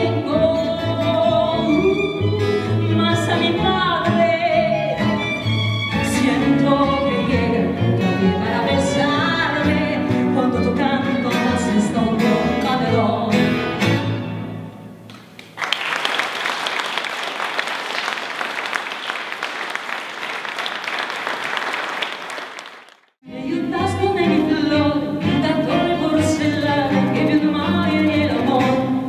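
Tango ensemble of violin, acoustic guitar and double bass playing with a woman singing. About halfway through the music ends and the audience applauds for several seconds; the applause cuts off abruptly and the band starts the next piece.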